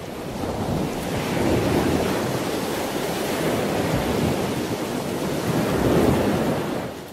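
A rushing, surf-like noise with no tones or voices, swelling about two seconds in and again near six seconds, then dying away at the end.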